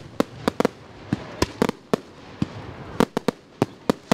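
Fireworks display going off: a rapid, irregular string of sharp bangs and crackles, about four a second.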